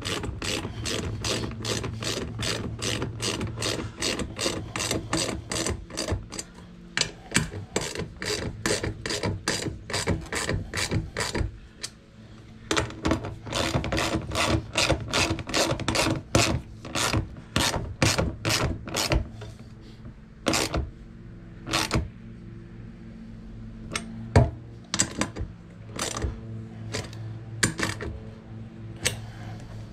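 Hand ratchet wrench clicking as bolts on a steel cart frame are tightened down, about three clicks a second in quick runs. The clicking pauses briefly about twelve seconds in, runs again, then thins to scattered clicks near the end, over a steady low hum.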